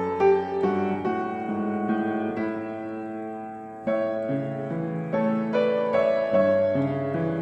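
Background piano music: notes are struck and left to ring. Partway through, a held chord fades away for about two seconds before the playing starts again.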